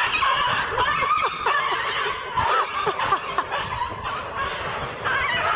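People laughing: many overlapping snickers and chuckles without a break.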